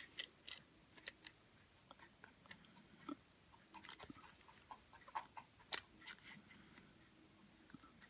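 Faint, irregular small clicks and taps of plastic Play-Doh toy pieces being handled, as a toy tool is worked at a Play-Doh pot.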